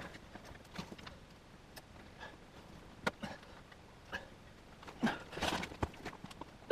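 Scattered faint clicks and knocks of hands handling parts on a desktop PC case, with a pause of a second or so between them.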